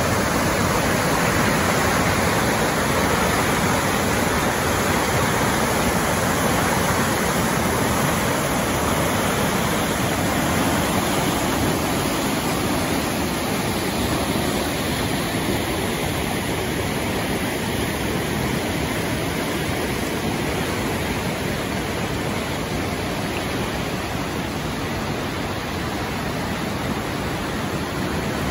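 Flood-swollen mountain river rushing loudly and steadily through whitewater rapids, running high after heavy storms.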